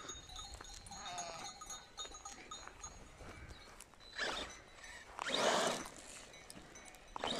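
A sheep flock's bells tinkle faintly and a sheep bleats. Then a Typhon 3S brushless RC buggy accelerates away over the gravelly dirt in two short bursts, about four and five and a half seconds in; the second is the loudest.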